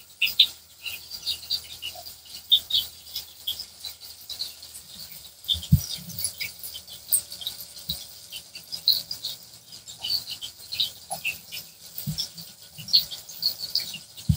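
Sliced onions frying in ghee in an aluminium pot, sizzling with irregular small crackles and pops throughout; the onions are still pale, early in browning. A few soft low thumps come about six, eight and twelve seconds in.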